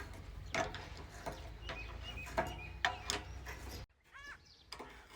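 Birds chirping over a steady low hum, with scattered sharp knocks every half second to a second. About four seconds in the hum cuts off abruptly, leaving only a few faint bird chirps.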